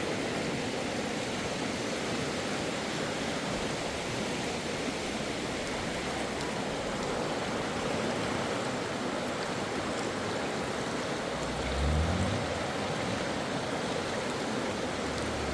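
Steady rush of running stream water. About twelve seconds in, a brief low rumble rises in pitch.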